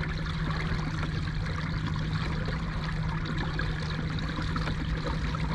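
Electric motor of an Old Town Sportsman Autopilot 120 fishing kayak running with a steady low hum, over water rushing and trickling along the hull as the kayak trolls.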